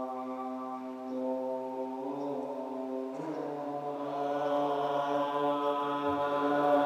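Buddhist monastic assembly chanting in unison in slow, long-held notes. The pitch steps to a new note twice early on, and the chant grows louder about four seconds in.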